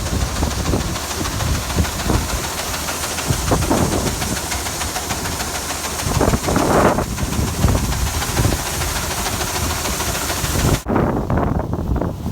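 Grain auger running while wheat is unloaded into it from a truck: steady machine noise under a dense hissing rush of flowing grain. It changes abruptly near the end.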